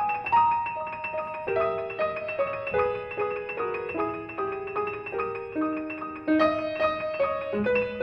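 Piano playing a melody of single notes, with lower accompanying notes coming in under it.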